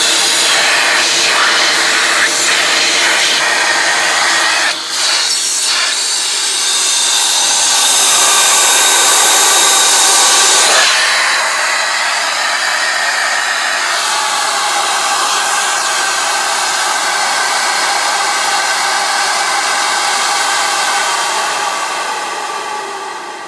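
A loud electric machine motor running steadily: an even rushing hum with a few whining tones on top that shift about 11 and 14 seconds in, fading near the end.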